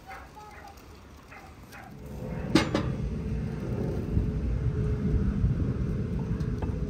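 A steady low rumble starts about two seconds in, with a single sharp click soon after it starts; before that, only faint short sounds repeat every third of a second or so.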